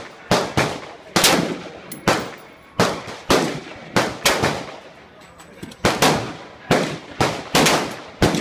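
AR-15 rifle fired in a fast string of semi-automatic shots, roughly two a second, each sharp crack followed by a short echo, with a brief pause about five seconds in.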